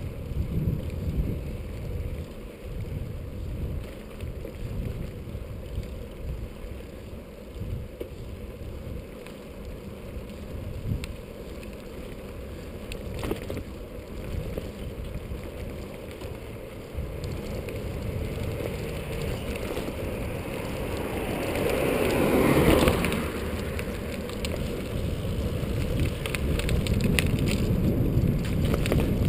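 Wind rushing and buffeting on the microphone as a bicycle rolls along a paved road. The rush comes in uneven gusts and swells to its loudest about 22 seconds in.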